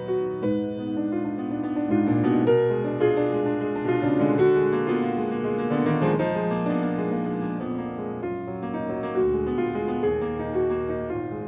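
Solo grand piano playing a classical piece, with a continuous flow of sustained, overlapping notes.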